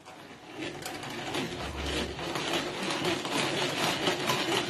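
Tupperware Speedy Chef, a hand-cranked whisk, being cranked to whip cream: a rapid mechanical whirring clatter of its gears and beaters. It starts soft and grows louder over the first couple of seconds as the cranking speeds up, then runs on evenly.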